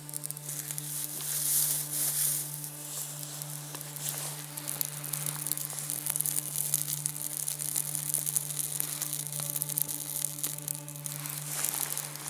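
A tinder bundle of dry grass, jute twine and birch bark, just lit from a flint-and-steel ember, burning in open flame: a dense crackle of quick snaps over a hiss, loudest about two seconds in.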